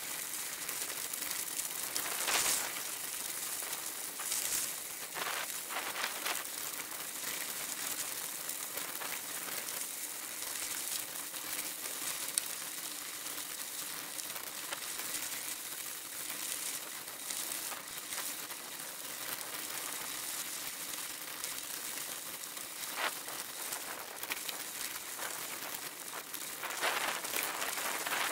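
Bicycle tyres rolling over a loose gravel track, a steady crackling hiss with a few louder jolts over bumps.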